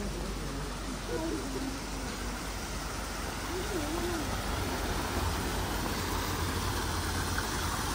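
Water spilling over rocks in small cascades into a garden pond, a steady rush. Two brief wavering pitched sounds come through it, about a second in and around four seconds in.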